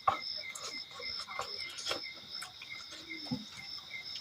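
Insects chirping steadily, a high repeating chirp about three times a second, with close, sharp clicks and smacks of someone eating; the loudest click comes right at the start.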